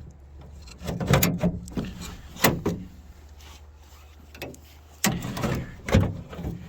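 Several separate knocks, clunks and short rattles of a minivan door's handle and lock linkage rods and clips being worked by hand inside the door.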